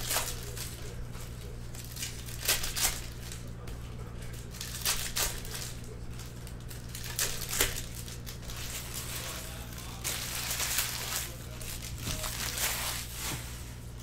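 Plastic wrapping on boxes of trading cards crinkling and crushing as it is handled, in short bouts every second or two and busier near the end. A steady low electrical hum runs underneath.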